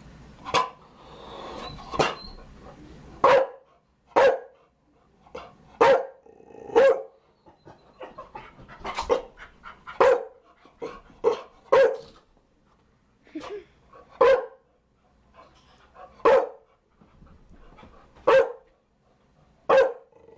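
Chow Chow dog barking repeatedly: single sharp barks, one every second or two, some in quick pairs, with short pauses between.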